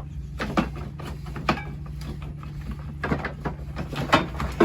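Hand tools knocking and clinking against car parts in a string of short, irregular knocks, over a steady low hum.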